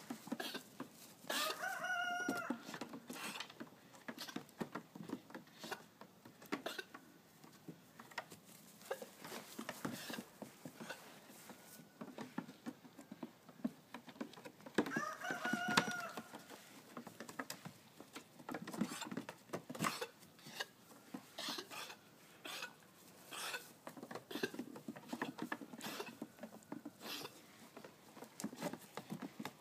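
A rooster crows twice, once about a second and a half in and again about halfway through, each crow about a second long and the loudest sounds here. Many short knocks and scuffles run on in between.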